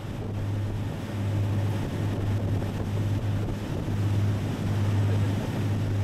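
Boat engines running hard at speed, a steady low drone that swells and eases slightly, mixed with water rushing past the hull and wind buffeting the microphone.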